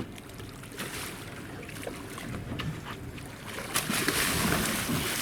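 Wind and water noise aboard a small boat at sea, with a louder rushing hiss that swells up nearly four seconds in and lasts about a second.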